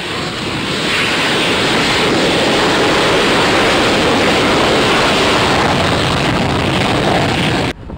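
Fighter jet's engine running at high power on its takeoff roll: a loud, steady rushing noise that swells about a second in and cuts off abruptly near the end.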